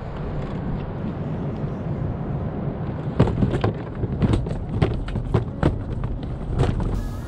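Wind buffeting the microphone as a steady low rumble. From about three seconds in, an irregular run of about a dozen sharp knocks and clicks.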